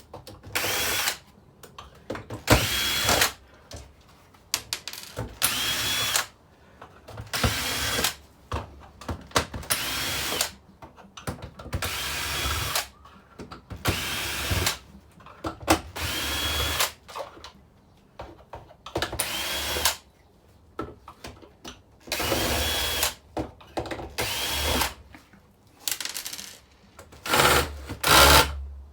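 Power drill driving out screws in a dozen or more short bursts, about one every two seconds, each spinning up with a quick rising whine, while a TV set is stripped for scrap.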